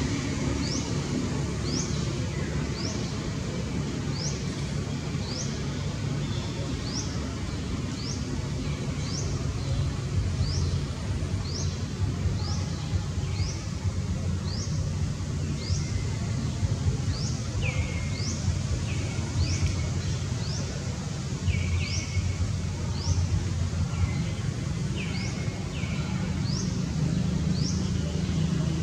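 Outdoor ambience: a bird repeats a short, high, rising chirp evenly, a little more than once a second. A lower, falling call joins in short runs from a little past halfway, over a steady low rumble.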